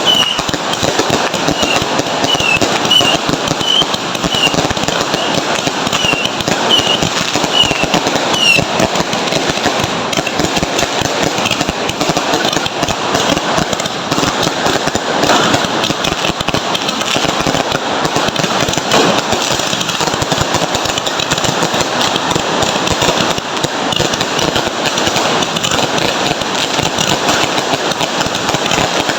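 Fireworks and firecrackers going off in a dense, continuous crackle of rapid bangs.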